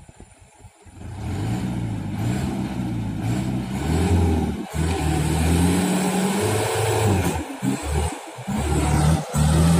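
Diesel engine of a truck loaded with oil-palm fruit revving hard under load as it crawls through deep mud. It starts about a second in, the pitch rising and falling, with several brief drops in revs.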